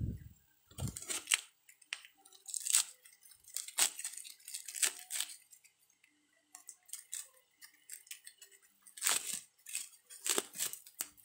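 Plastic wrapping being torn and crinkled by hand as it is pulled off, in irregular crackling bursts with a quieter lull about midway.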